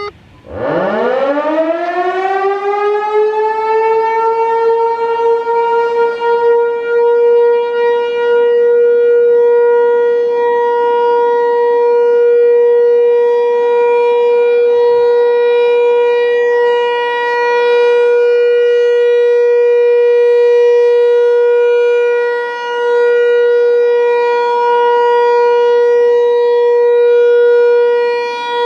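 American Signal T-128 outdoor warning siren sounding its steady Alert tone. It winds up from a low growl over about three seconds to a steady high wail, then holds that single pitch, with two brief dips in loudness near the end.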